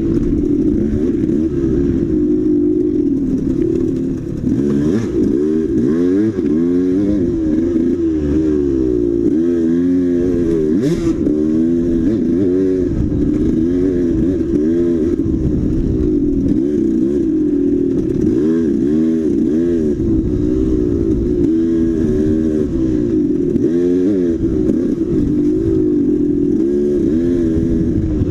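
Dirt bike engine running hard, its pitch climbing and falling back every second or two as it revs up and drops again. There is one sharp click about eleven seconds in.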